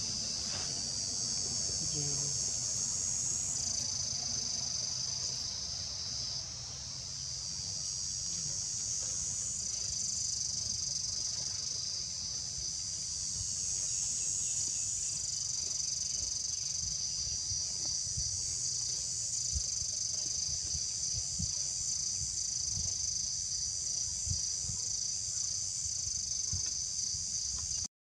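Steady, high-pitched chorus of forest insects shrilling without a break, with a faint low rumble and a few soft ticks underneath.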